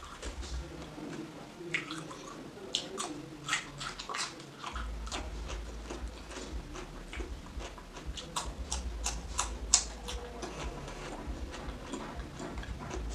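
Close-miked eating of crisp raw cucumber and watermelon: irregular sharp, wet crunches and chewing mouth sounds.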